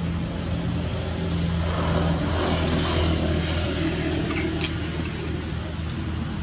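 Low hum of a vehicle engine, swelling about halfway through and easing off again.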